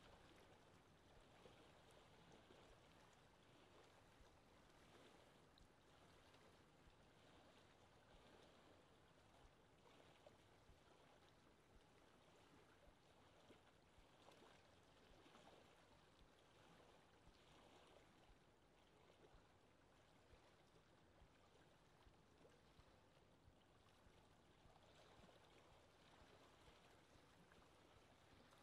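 Near silence: a faint, steady hiss with no distinct sound in it.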